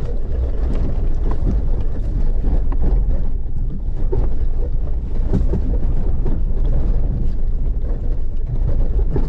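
Vehicle driving down a steep, rough access track: a loud, steady low rumble of road and cabin noise with scattered knocks and rattles.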